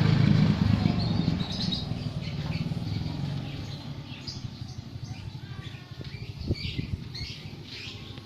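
A low motor rumble, loudest at the start and fading over the first few seconds, with small birds chirping.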